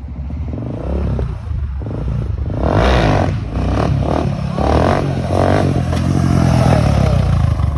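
Motorcycle engine revving in repeated surges, louder from about two and a half seconds in.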